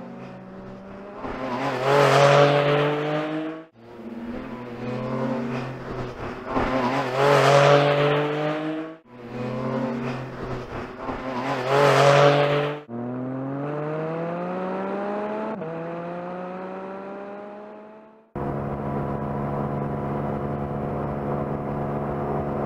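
2022 Porsche 718 Cayman GT4 RS's naturally aspirated 4.0-litre flat-six at high revs. Three passes past the camera, each rising to a loud peak, are followed by a smoother climbing run with one quick upshift partway through, then a steady high-revving note near the end.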